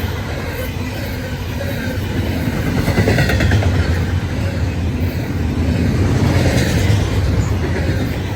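Freight train cars rolling past at close range: a steady, loud rumble of steel wheels on rail, swelling about three seconds in and again near the end.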